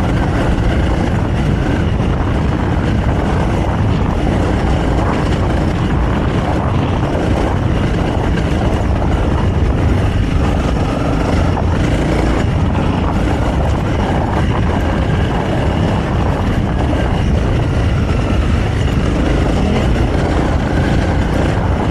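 Honda CRF300L trail bike's single-cylinder four-stroke engine, on its stock intake and exhaust, running steadily while ridden over a rough gravel trail, under a loud, even wash of noise.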